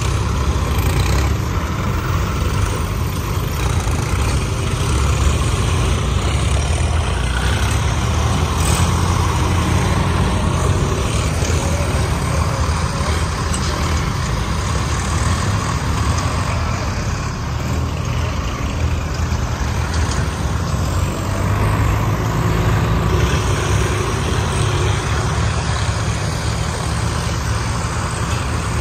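Diesel engines of several farm tractors, a John Deere and Swaraj 855s, running loud and steady as they drive across the field.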